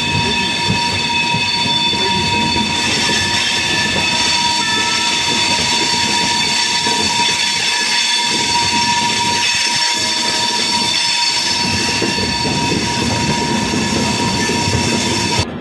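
Passenger train running at speed: a loud steady rush of wheel and track noise with a steady high whine running through it. The sound cuts off shortly before the end.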